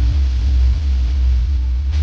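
Electronic background music dominated by a deep, steady bass that comes in suddenly just before this point.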